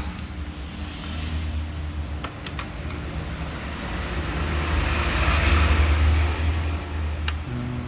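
Low rumble of a passing motor vehicle, growing to its loudest about five to six seconds in and then easing, with a few light clicks.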